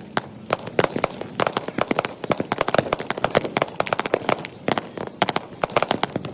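Firecrackers and fireworks popping and banging in a dense, irregular run of sharp reports, several a second, with no let-up. The audio is sped up threefold, which quickens and raises every crack.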